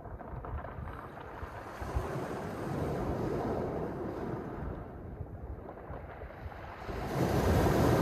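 Mediterranean waves washing over a pebble beach: a steady wash of surf that eases off in the middle, then swells into a louder wave breaking near the end.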